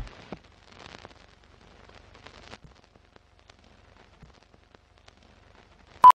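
Faint scratchy crackle of an old film soundtrack, then a single short, loud beep about six seconds in: the sync beep of a film-leader countdown.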